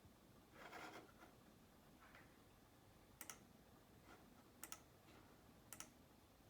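Near silence broken by a few faint, sharp clicks, three of them coming as quick double clicks about a second or so apart, with a soft rustle about a second in.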